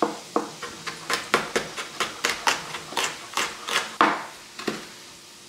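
Chef's knife chopping a scotch bonnet pepper on a plastic cutting board: a quick, uneven run of sharp taps, about four a second, stopping shortly before the end.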